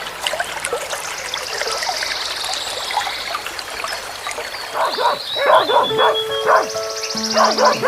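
A run of short, quick animal calls, several a second, starts about five seconds in over background music with steady held notes; before that only a hazy background.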